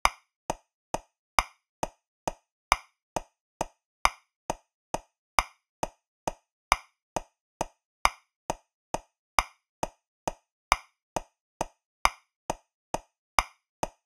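Metronome clicking at 135 beats per minute in 3/4 time, about two clicks a second. Every third click is louder and differs in tone, accenting the first beat of each bar.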